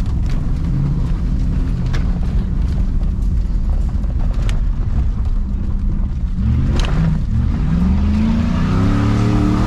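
Pickup truck engine running with a low rumble and a few sharp knocks or rattles. About six and a half seconds in it revs up, its pitch rising over the last few seconds.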